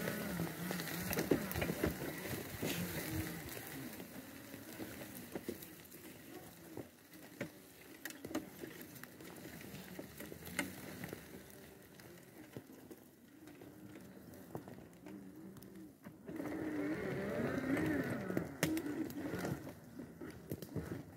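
Electric drive motors of an Extreme X8 power wheelchair whining as it rolls along a rough forest path, the pitch wavering with speed and load. Scattered knocks and rattles come as the chair goes over roots and twigs, and the motors get louder for a few seconds near the end.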